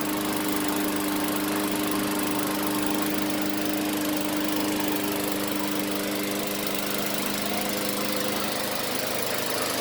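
A newly assembled walk-behind gas lawn mower's engine running at a steady, even speed.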